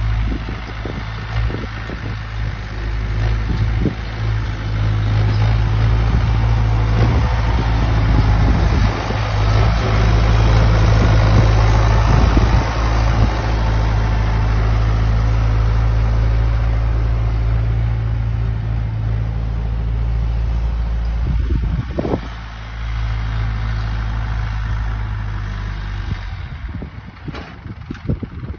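International 744 tractor's diesel engine running steadily as the tractor drives past towing a manure spreader. It grows louder toward the middle, dips briefly a little past two-thirds of the way through, and fades near the end.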